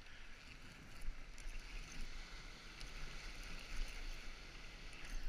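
Ocean surf washing over shoreline rocks, a steady hiss, with wind rumbling on the microphone.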